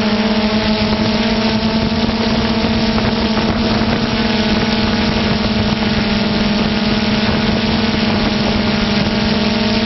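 Multirotor camera drone's propellers and motors humming at a steady pitch, over a constant rush of rotor wash and wind noise.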